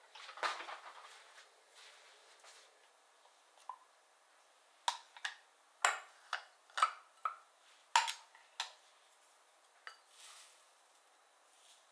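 A brief scrape near the start, then the lid of a glass storage jar is worked open, giving a run of sharp glassy clinks and clicks. Near the end comes a soft rustle of dried bonito flakes being picked up with wooden chopsticks.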